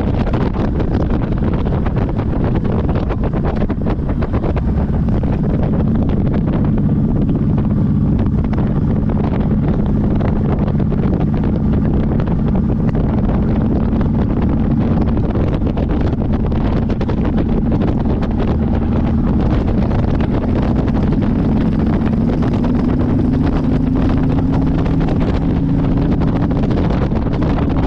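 Motorcycle engine running at a steady cruise under wind rushing over the microphone; the engine note climbs a little near the end.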